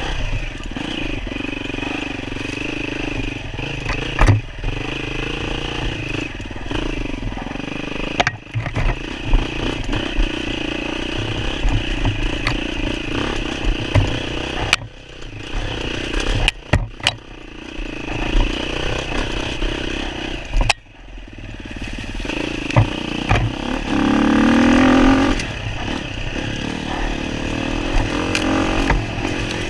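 Enduro dirt bike engine running under changing throttle, revving up and easing off, with sharp knocks and clatter over rough ground. Well past the middle the engine revs hard, climbing in pitch.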